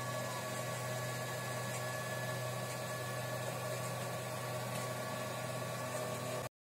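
FelFil filament extruder and its automatic spool winder running: a steady electric-motor hum and fan whir with a few constant tones. The sound cuts out abruptly near the end.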